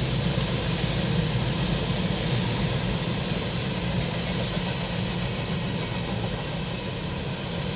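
Freight train rolling past: a steady rumble of freight cars on the rails, with a low diesel engine drone underneath.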